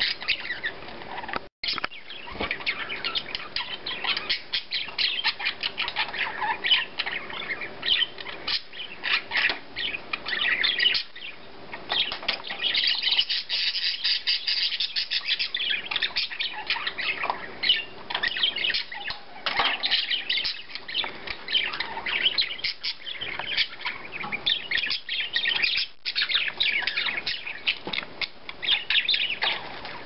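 Several budgerigars chirping, warbling and chattering continuously in their cage, a dense run of short high calls.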